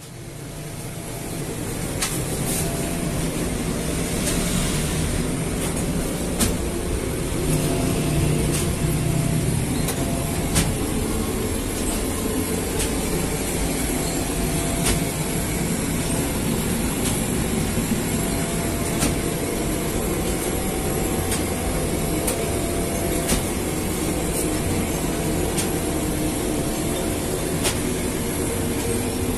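Steady mechanical din of semi-automatic bread-making machinery running, with scattered clicks and knocks; it fades up over the first second or two.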